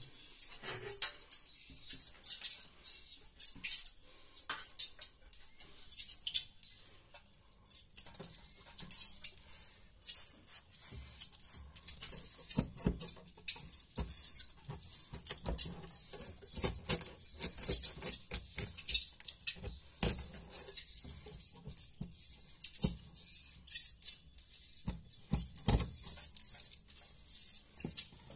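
Swiftlets twittering in a dense, continuous stream of short high chirps and rapid clicks, with scattered knocks mixed in.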